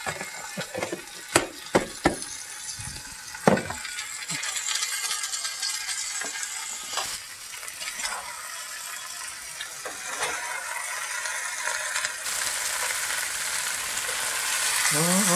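Sliced squash and onions frying in butter in a skillet, sizzling steadily, the sizzle growing louder from about four seconds in. A spoon clicks against the pan several times in the first few seconds as the pieces are stirred and turned.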